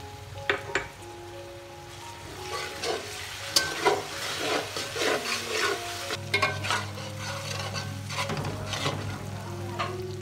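Onions and ginger garlic paste frying in oil in a metal pot, sizzling while a slotted metal spatula stirs and scrapes against the pot. Two sharp taps come about half a second in, and the stirring is busiest through the middle.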